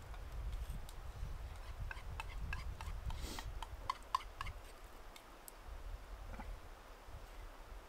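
A pocket knife slicing raw beef on a stone, the blade ticking against the rock in a run of light clicks, busiest in the middle, over a low background rumble.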